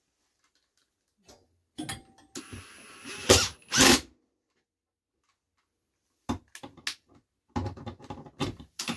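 Ryobi cordless driver driving a screw up into a wooden board in short runs: a whirring stretch with two loud knocks around three to four seconds in, then a series of short rattling bursts near the end.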